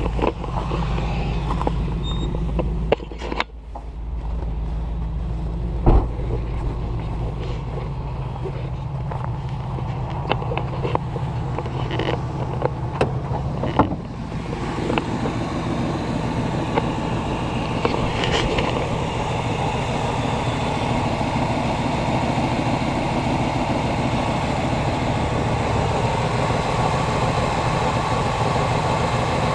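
Pontiac Firebird's 305 V8 idling steadily, heard first muffled from inside the car and then from over the open engine bay after about halfway. A few sharp knocks of handling come in the first half.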